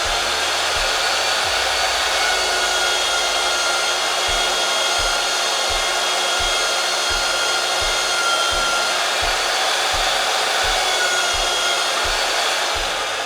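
Electric pipe threading machine running steadily, its motor whining while the reamer clears the burr lip from inside the cut pipe end. From about four seconds in, a faint low knock repeats about twice a second.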